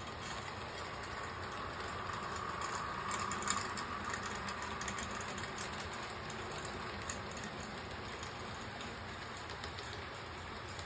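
HO scale model freight cars rolling past on the track: a steady rolling rumble with light clicks from the wheels, a little louder for a few seconds about a third of the way in.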